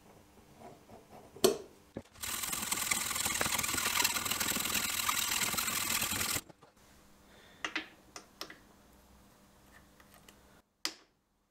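Hacksaw cutting through a steel bar clamped in a bench vise: a loud, even rasping that starts about two seconds in and lasts about four seconds. It is preceded by a few faint taps and a sharp click, and followed by several light metal clicks and taps.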